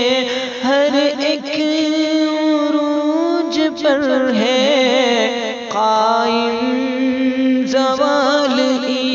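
Wordless vocal humming in an Urdu marsiya: a melody with wavering ornaments over a steady, held low drone.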